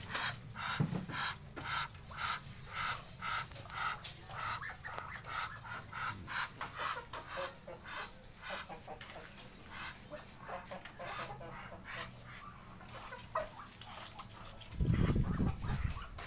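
Chickens clucking: short calls repeated about twice a second, thinning out after the first half. A loud low rumble on the microphone comes near the end.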